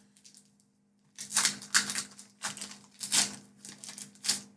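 Foil Pokémon booster pack wrapper crinkling in about seven short rustles as it is handled and opened, starting about a second in.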